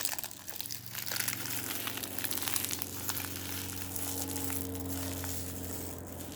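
Plastic and paper packaging crinkling and being crushed in irregular crackles as unboxing trash is gathered up, over a steady low hum.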